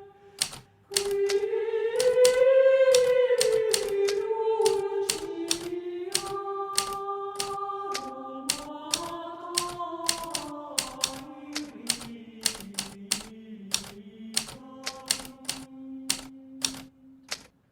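Hermes Baby portable typewriter keys striking in a steady run of about three a second, over slow, sustained background music that changes chord every few seconds.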